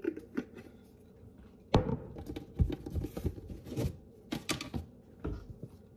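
Metal spoon working dry cornstarch in a plastic bowl: a sharp knock about two seconds in, then a run of irregular clicks and taps of the spoon against the bowl.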